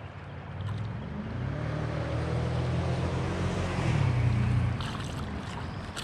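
Creek water washing around a wading angler while a hooked smallmouth bass is played in, with a low humming drone that swells and fades through the middle. Near the end the bass splashes at the surface close to the landing net.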